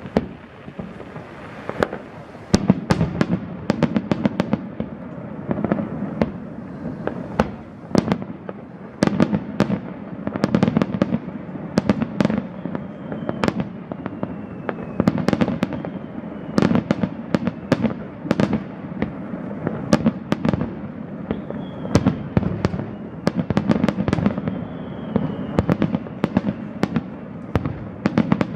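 Fireworks display: a rapid, irregular series of sharp aerial shell bangs and crackles over a continuous low rumble of booms. A few thin whistles sound from about halfway.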